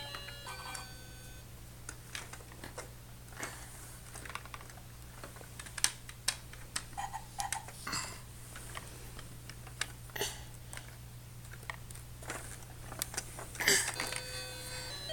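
Plastic toy train and track pieces clicking and clacking irregularly as a child handles them, over a steady low hum.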